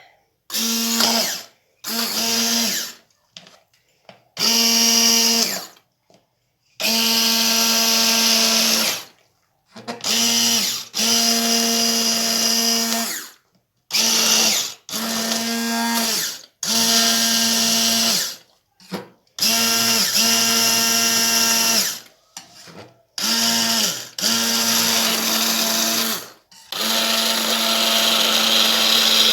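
Electric blender puréeing the cooked onion soup, switched on and off in about a dozen runs of one to three seconds, its motor whine steady through each run.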